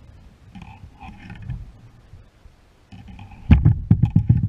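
A quick run of about six loud knocks and thuds on the plastic kayak, about three and a half seconds in, as a caught northern pike is lifted and handled on board.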